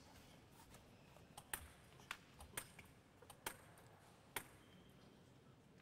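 Table tennis ball clicking sharply on the table and rackets: about half a dozen short, separate ticks, irregularly spaced over a few seconds, over faint hall ambience.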